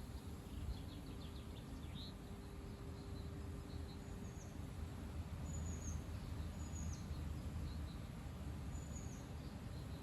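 Strong wind buffeting the microphone as a steady low rumble that swells and eases. A bird gives a short high trill near the start, then four brief, high, falling chirps in the second half.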